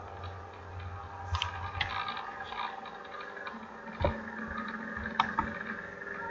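A few scattered sharp clicks from computer mouse and keyboard use, with a heavier knock about four seconds in, over a steady low hum.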